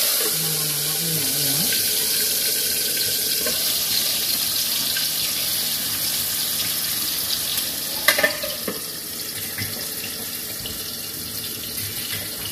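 Pindang fish frying in hot oil in a lidded wok: a steady hissing sizzle that slowly eases off. About eight seconds in, a couple of sharp metal clicks come from the aluminium lid being handled.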